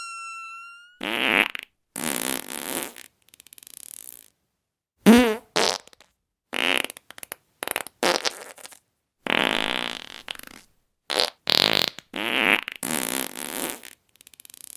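A string of separate fart sounds, about a dozen, each lasting under a second and a half, with short silences between them. The loudest, about five seconds in, wobbles in pitch. A steady high tone cuts off about a second in, just before the first fart.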